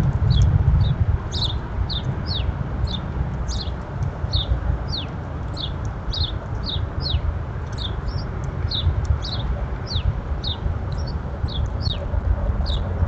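A songbird calling over and over: short, high, downward-sliding chirps, about two a second, over a steady low rumble.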